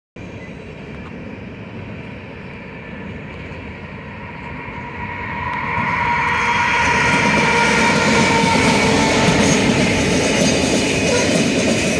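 BNSF freight train passing close by: the diesel locomotive draws level about six seconds in and the sound grows louder, then a string of freight cars rolls past with wheels clacking over the rail joints.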